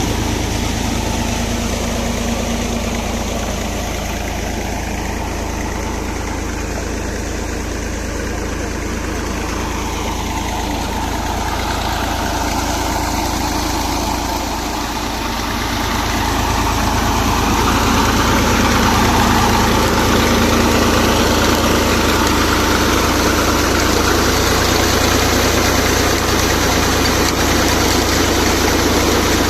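New Holland tractor's diesel engine running steadily, powering the tubewell pump. It grows somewhat louder a little past halfway and holds there.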